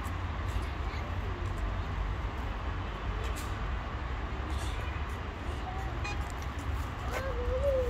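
Steady low rumble of street traffic, with one brief wavering meow from a cat near the end.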